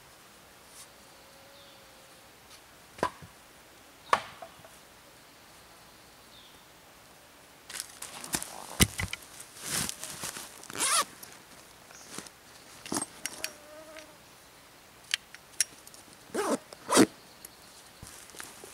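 A canvas zippered bag being handled on the ground: fabric rustling and small clattering knocks, with a zipper pulled near the end. A fly buzzes past briefly twice, and there are two sharp knocks a few seconds in.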